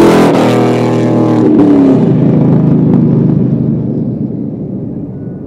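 383 cubic-inch stroker V8 with a Borla ATAK stainless muffler, exhaust note climbing in pitch under acceleration. About two seconds in it drops to a lower rumble and fades away.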